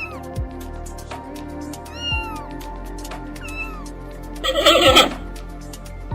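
Domestic cat meowing: short rising-and-falling calls about two seconds apart, then a louder, harsher call about four and a half seconds in, over background music.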